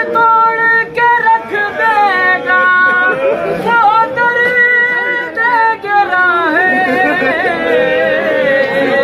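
A man chanting a nauha, an unaccompanied Urdu lament, in long held notes that slide and waver between pitches.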